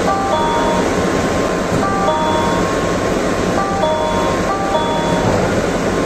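Tokaido Shinkansen N700-series smoking-room door chime: a short electronic tune of a few pure notes, sounding several times, over the steady rumble and hiss of the train running.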